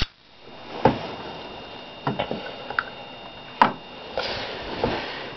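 Metal Zippo lighter cases being handled and set down: a few separate sharp clicks and clacks spread over several seconds, with a soft rustle near the end.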